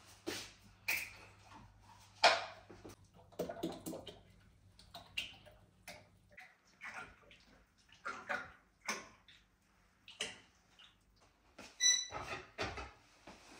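Cooking oil poured from large plastic bottles into the empty stainless-steel well of a pressure fryer, with oil splashing and irregular clunks and knocks of the bottles against the steel. A low hum stops about halfway through, and a brief high tone sounds near the end.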